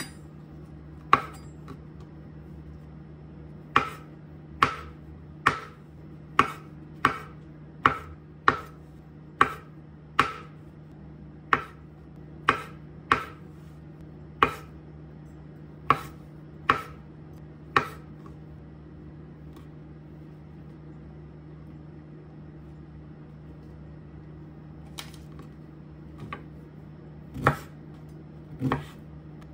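Knife chopping food on a cutting board in slow single strokes, about one a second, pausing for several seconds before a few more cuts near the end. A steady low hum runs underneath.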